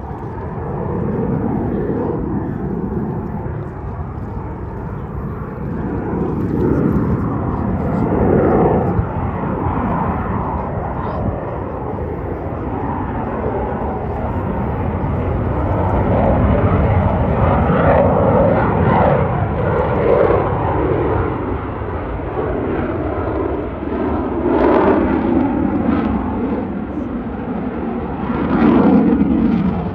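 Aircraft engine noise from a plane flying over, steady and loud, swelling and easing in loudness several times.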